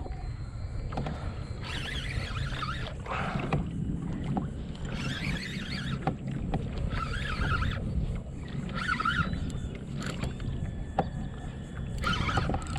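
Water sloshing and lapping against a kayak hull in repeated splashy patches over a low steady rumble, with a few light knocks.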